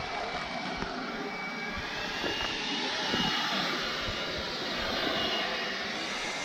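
Steady rushing noise that swells slightly a couple of seconds in, with faint distant voices.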